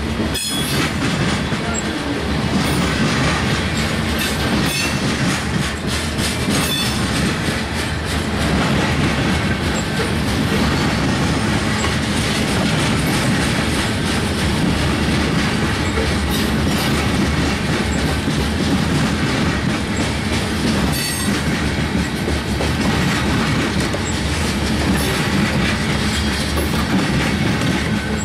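Covered hopper cars of a freight train rolling past: a steady rumble of steel wheels on rail with repeated clicking as the wheels cross rail joints.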